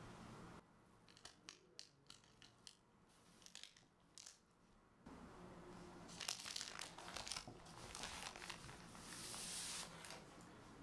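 A sponge cake sheet lying on baking paper is cut into strips. First come a few soft, scattered knife clicks, then several seconds of crinkling and tearing from the paper and sponge as the sheet is handled.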